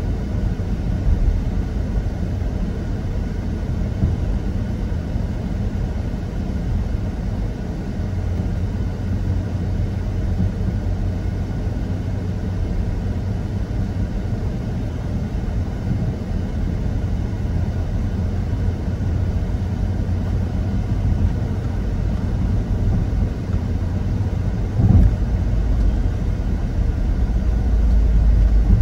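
Steady low vehicle rumble, with a single thump about 25 seconds in and the rumble growing louder near the end.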